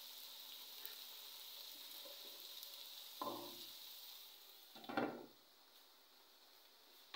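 Onions and potato cubes sizzling faintly in oil in a pan. There is a knock about three seconds in, and about five seconds in a glass lid clinks onto the pan, after which the sizzle is quieter.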